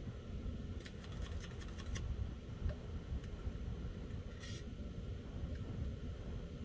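Light handling clicks in a quick run, then a brief rustle or hiss, from the printhead being handled during a nozzle check, over a steady low hum.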